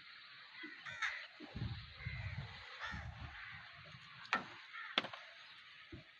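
A crow cawing several times, over irregular low rumbling.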